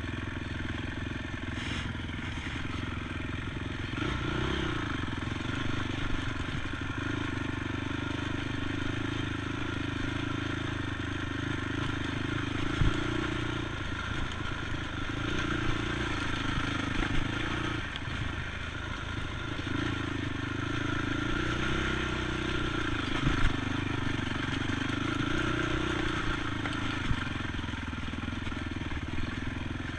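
ATV engine running under a rider, its pitch rising and falling again and again as the throttle is worked, with rattles and a few sharp knocks from the machine over rough ground.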